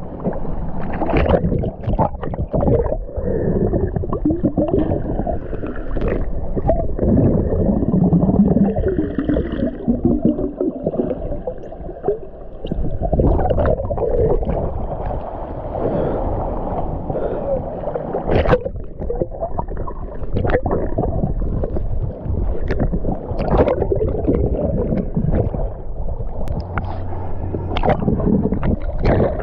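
Muffled water sloshing and gurgling with bubbles, as heard by a camera held underwater, with scattered sharp clicks and knocks.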